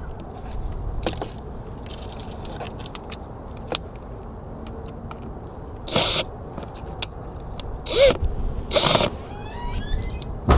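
Cordless drill driving a small screw into metal, run in three short trigger bursts in the second half, over a low steady rumble with a few light clicks.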